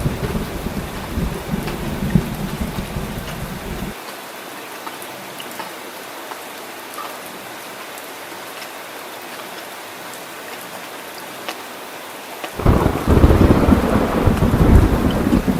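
Heavy rain with deep, rolling thunder. The thunder rumble stops abruptly about four seconds in, leaving a steady rain hiss, then returns suddenly and louder near the end.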